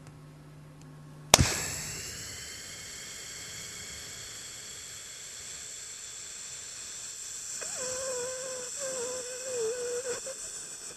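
A single hard strike on metal percussion, a bell or gong-like instrument, hit once about a second in and ringing out for several seconds. Near the end a wavering humming tone comes in.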